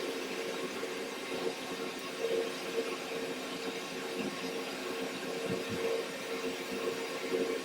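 Solder fume extraction vacuum (snorkel) running steadily: an airy rushing noise with a steady hum, loud enough to make the recording sound bad.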